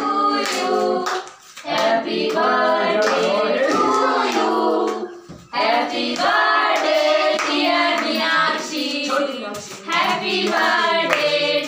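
Several people singing together while clapping their hands, with two short breaks in the singing, about a second and a half in and about five and a half seconds in.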